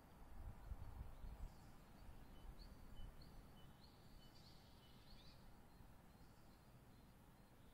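Near silence: faint background hiss with a low rumble in the first second or so and a few faint, short, high chirps scattered through.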